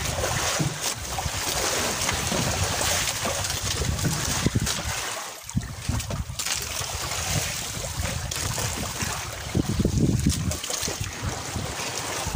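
Wind buffeting the microphone in uneven gusts over the wash of the sea around a small outrigger fishing boat, with no engine tone.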